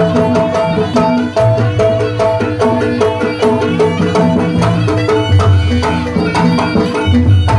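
Live Javanese jaranan gamelan music: a fast run of drum and percussion strikes over repeating pitched metal notes, with a deep low tone swelling in and out every second or two.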